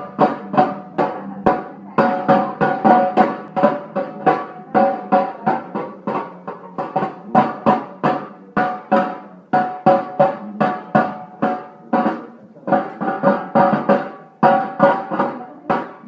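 A baby banging out rapid, uneven strikes on objects that ring after each hit, in quick runs broken by short pauses.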